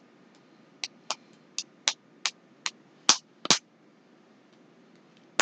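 A series of short, sharp clicks or taps, about ten over two and a half seconds, then a single one near the end.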